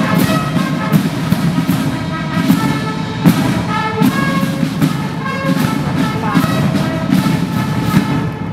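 Military drum and brass band playing a march: brass horns sound a fanfare tune over regular side-drum beats, with a last drum stroke near the end.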